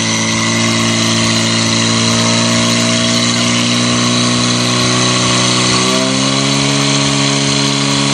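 Portable fire pump's engine running at high revs, pumping water out to the hose lines, a steady engine note that steps up slightly in pitch about six seconds in.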